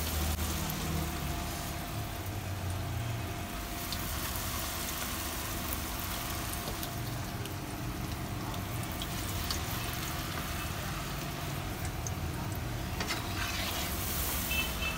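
Raw potato fries, just dropped into hot oil in a karahi, sizzling with a steady bubbling hiss.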